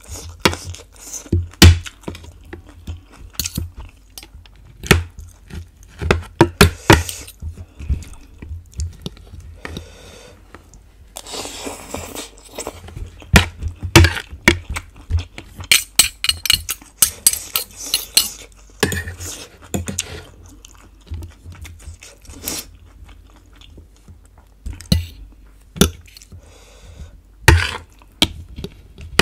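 Close-miked eating: a metal fork and spoon clinking and scraping on a plate as charred pork ribs are pulled apart, with crunchy chewing. Sharp taps come throughout, with denser crackly stretches in the middle.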